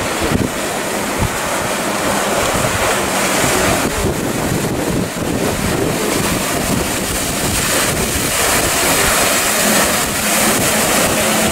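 Wind buffeting the microphone over the rush of surf and choppy sea. Near the end, a boat engine's low steady drone comes in faintly.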